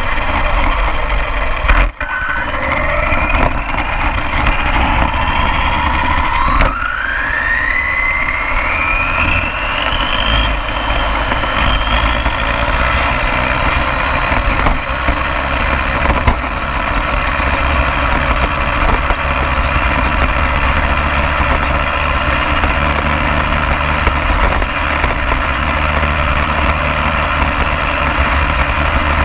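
Radio-controlled car driving fast on asphalt, heard from a camera mounted on it: its motor whine climbs in pitch as it speeds up several seconds in, then holds high over a steady low rumble of tyres on the road.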